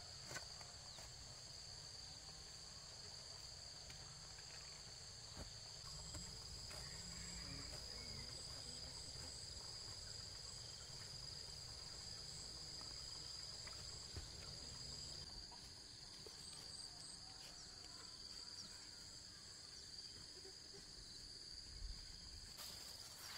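Insects keep up a steady, high-pitched, unbroken drone. A couple of faint knocks sound near the start.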